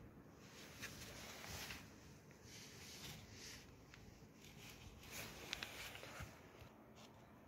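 Faint, scattered scratching and scuffing as a small puppy gnaws and paws at a foam Crocs clog on a concrete floor.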